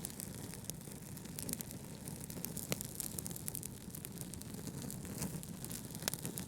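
Wood fire crackling, with frequent small pops and snaps over a steady low rumble of brown noise.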